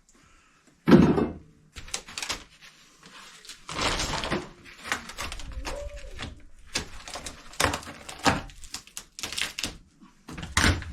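Irregular knocks and clatters of hand demolition work on a boat's galley counter, as pieces are pried loose and handled, with the sharpest knock about a second in.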